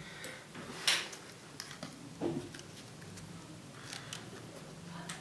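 Light clicks and scrapes of hands working on a DJI Mavic Mini drone's plastic body and lifting it, with one sharper click about a second in.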